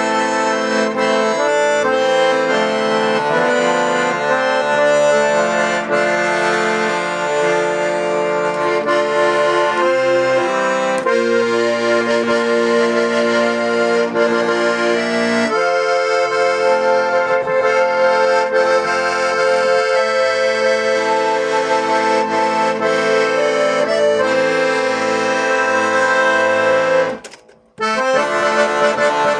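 Hohner Morino IV M accordion being played: sustained chords over steady bass notes, changing every second or so. Near the end the playing stops briefly for about half a second, then starts again.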